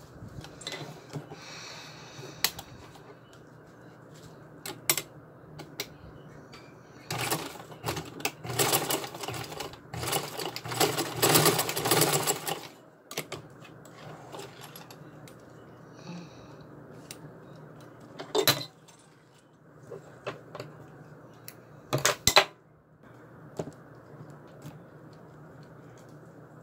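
A vintage black sewing machine stitches through a fabric-covered dog collar strap, its needle clattering rapidly for about six seconds before stopping. Later come a few sharp clicks and knocks from handling.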